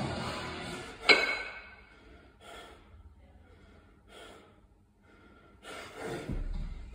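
Hard breathing of a kettlebell lifter mid-set in the long cycle with two 28 kg bells: sharp gasps and short forceful exhales, with a sharp burst about a second in as the bells are cleaned into the rack and a longer, louder breath near the end.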